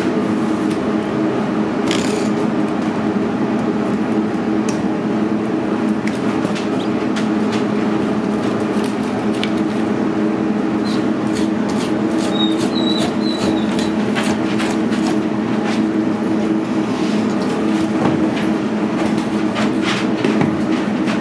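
Steady mechanical hum, with scattered knocks and taps as a raw whole pig is handled and cut on a worktable, and a few short high chirps partway through.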